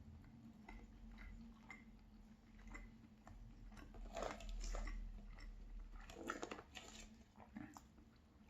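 Faint close-up chewing of a pan-fried cheese pancake: soft crunches and wet mouth clicks, loudest around four and six seconds in.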